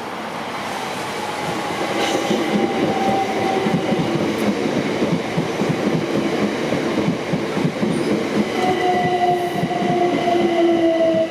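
Southern electric passenger train running through the level crossing, its wheels clattering rapidly over the rail joints with a steady electric whine that falls slightly in pitch, growing louder for the first couple of seconds.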